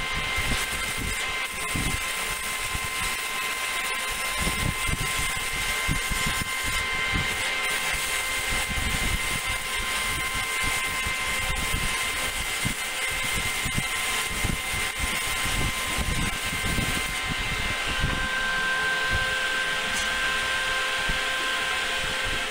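Steady whine of machinery with several fixed tones over a hiss, with an irregular crackling rumble underneath, during welding work on a ship's anchor chain.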